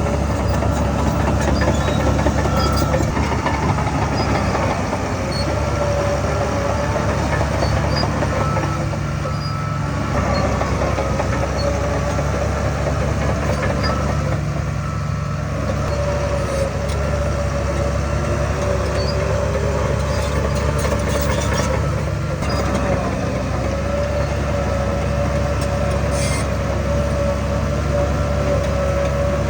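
Diesel engines of heavy earthmoving machinery, a bulldozer and dump trucks, running steadily under load with a deep rumble and a steady high whine.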